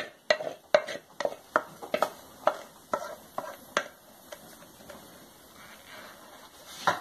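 Wooden spoon tapping and scraping against a metal saucepan as thick banana jam is scraped out, about ten sharp knocks at roughly two a second, stopping about four seconds in.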